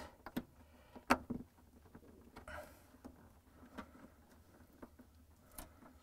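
Plastic wire-harness plugs being pushed into their connectors and handled, with a few faint clicks and one sharper click about a second in.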